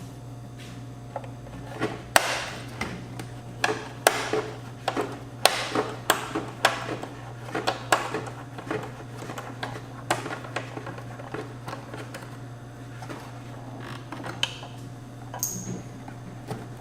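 Small tools clicking and scraping on a car amplifier's metal chassis as tiny screws are worked loose, irregular sharp clicks over a steady low hum, with a brief squeak near the end.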